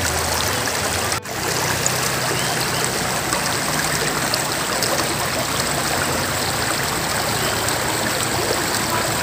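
Shallow river water running over and around rocks: a steady, even rushing, with a brief dropout about a second in.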